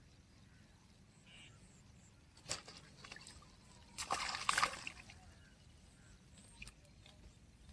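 Water splashing: a brief splash about two and a half seconds in, then a louder, longer sloshing splash about four seconds in.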